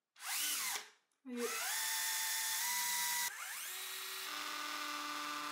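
Cordless drill boring a hole in a wall: a brief rev-up and wind-down, then about a second in it spins up and runs steadily. A little after three seconds the note dips and climbs higher, the drill running on freely with no brick behind the bit.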